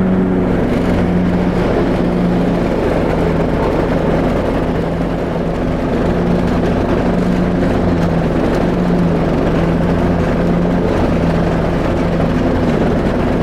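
A Craftsman YT3000 riding mower's 21 hp Briggs & Stratton engine running steadily under load as the tractor drives and mows tall grass.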